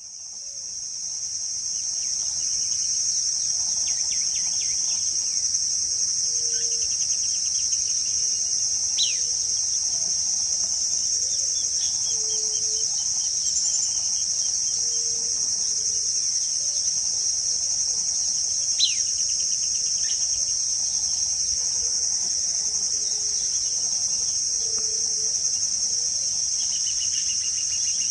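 Steady, high-pitched insect chorus that fades in over the first couple of seconds and then holds unbroken. Beneath it are scattered short trills and a few sharp whistled notes, twice as quick falling sweeps.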